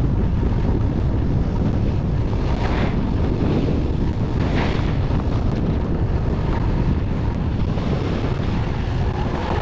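Steady wind buffeting the microphone of a skier moving downhill, with skis hissing over packed, groomed snow; the hiss swells briefly about a quarter and about halfway through.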